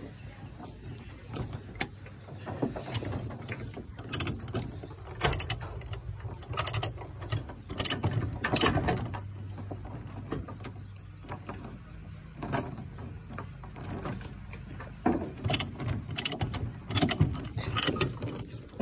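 Ratchet chain load binder being cranked by hand, its pawl clicking in short irregular runs, with the odd clank of the chain.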